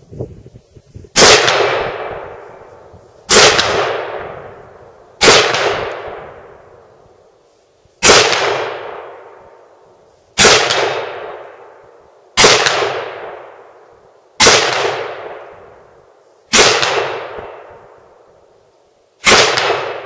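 Bushmaster A3 M4 carbine in 5.56 fired as single aimed shots, nine of them about two seconds apart, each shot sharp and trailing off slowly in echo.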